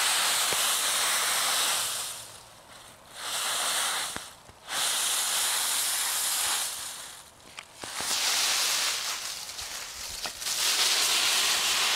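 Dry autumn leaves rustling and crunching as a small dog leaps and burrows through a leaf pile. The sound comes in repeated bursts with short lulls between.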